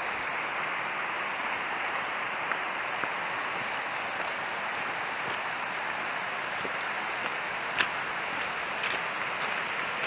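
Steady rush of water from a small waterfall and its stream, with a couple of short sharp clicks near the end.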